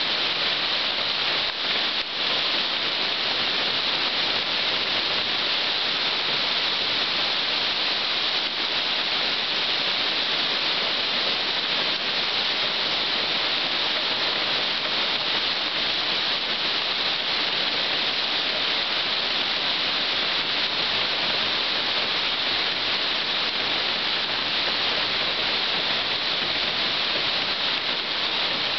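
Heavy rain shower pouring onto water-covered asphalt and parked cars: an even, unbroken hiss.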